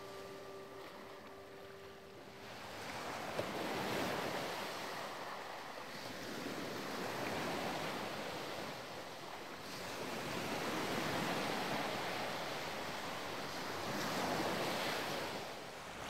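Gentle surf breaking and washing up a sandy beach, swelling and ebbing about every three to four seconds. A held musical drone fades out in the first two seconds or so.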